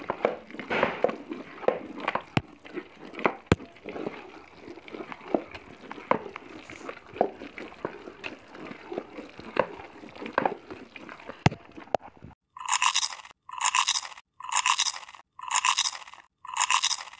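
Wooden masher churning and pressing cooked mustard greens in a steel pot: irregular wet scraping strokes with a few sharp clicks against the pot. About twelve seconds in, this gives way to five evenly spaced beeping tones, about one a second.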